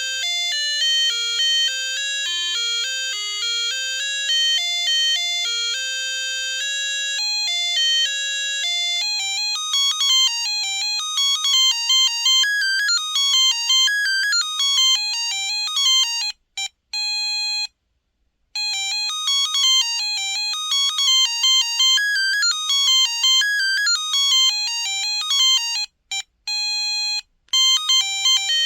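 Samsung Anycall SCH-X140 mobile phone playing monophonic ringtone melodies, one beeping note at a time in quick runs. The tune breaks off briefly about 16 seconds in and again about 26 seconds in, as one ringtone ends and the next starts.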